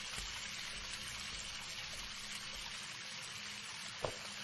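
Water running steadily from a tap into a bathtub, heard as an even hiss. There is one small knock near the end.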